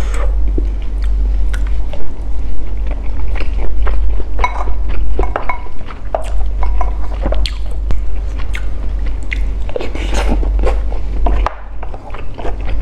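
Close-miked mouth sounds of a person chewing a mouthful of sticky rice (xôi) with coconut-cream sauce and crunchy coconut strips: wet smacking and sticky clicks, many in quick succession, over a steady low hum.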